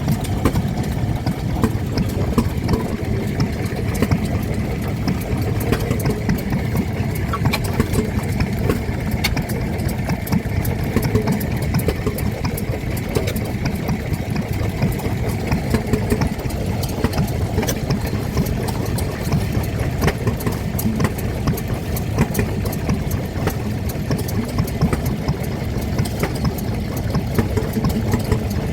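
Vintage stationary engine running steadily at idle, a continuous low mechanical running sound with scattered light clicks.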